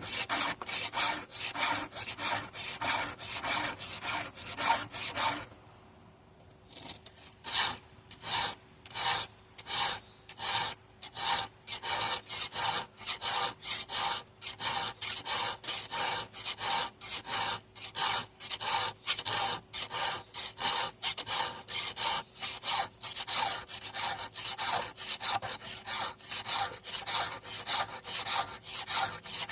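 Hand file sharpening a chainsaw chain, rasping across the teeth in quick even strokes about two or three a second, with a short pause around six seconds in before the strokes resume.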